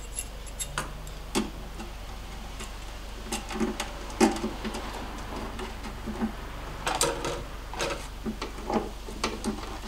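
Irregular small clicks and metallic clinks of hand tools and metal fittings being handled while the fuel pressure regulator is fitted to the firewall, with a cluster of ringing clinks about seven seconds in.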